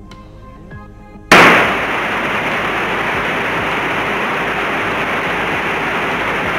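Loud, steady rushing and crackling noise of an electric light aircraft's takeoff roll on a grass runway: wheels rumbling over the grass and airflow. It starts suddenly about a second in, after faint gliding tones.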